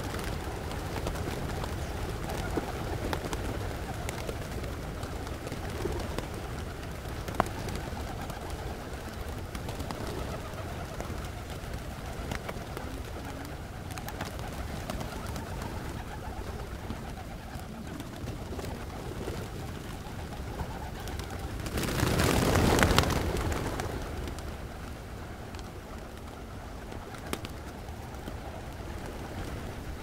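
A large flock of pigeons cooing and grunting continuously. About two-thirds of the way through comes a loud rush of flapping wings lasting around two seconds, as many birds take off together.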